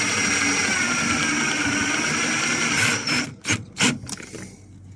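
Cordless drill-driver running steadily as it drives a screw through a metal drawer slide into a plywood drawer, with a thin high whine; its tone dips a little midway, and it stops about three seconds in. A few sharp clicks follow.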